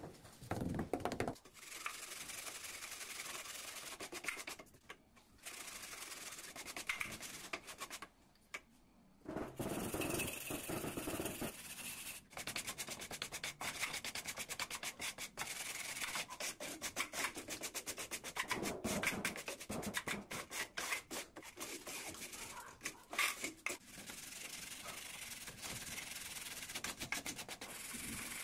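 Gritty mortar scraped and spread with a hand trowel, then a metal straightedge drawn back and forth across the mortar bed to level it, making a dry rasping scrape in quick, repeated strokes.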